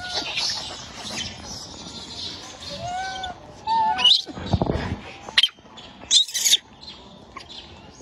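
A few short, arched chirping animal calls, with loud rustling and bumping noises about four to six seconds in.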